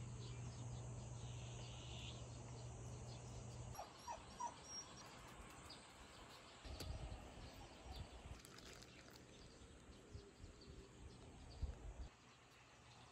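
Faint outdoor ambience. A low steady hum stops about four seconds in, followed by three short high chirps and a few soft low thumps.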